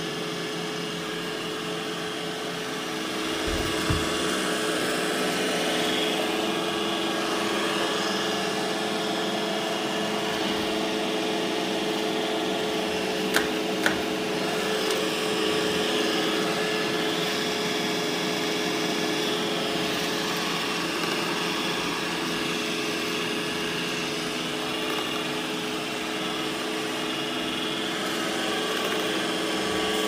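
iRobot Roomba i7+ robot vacuum running on a hardwood floor: a steady motor whine with the hum of its suction and brushes. A low thump comes about four seconds in, and two sharp clicks come close together around the middle.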